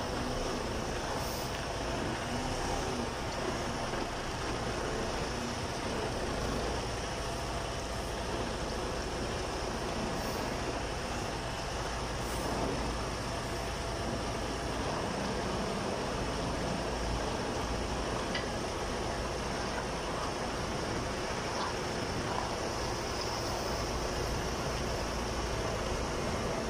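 Semi-tractor's diesel engine running steadily at low speed while the tractor-trailer backs into a parking spot.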